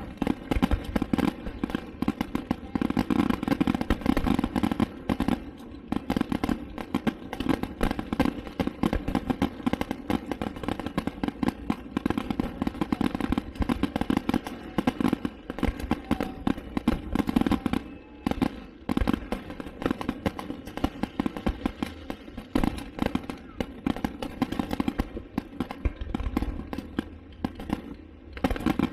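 Fireworks display going off: many bangs and crackles in quick, irregular succession, over a steady hum.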